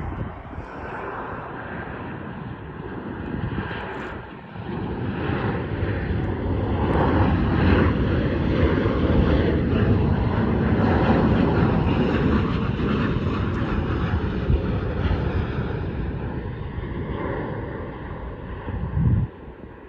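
Jet airliner passing close by, its engine roar swelling to a peak and fading away with a faint whine above it. A short bump near the end.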